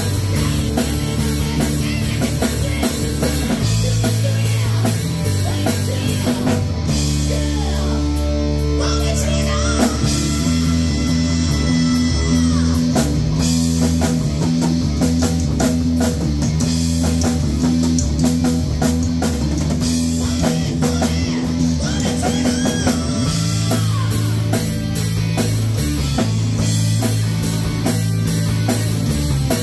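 Live hard-rock band playing: distorted electric guitar, electric bass and drum kit. Lead guitar notes bend up and down around the middle, over a steady driving beat.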